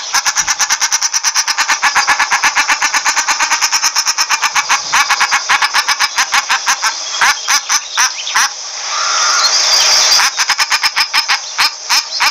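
Common shelduck calling: a fast, harsh run of repeated notes at about eight a second. It breaks off for a moment of hiss around nine seconds in, then starts again.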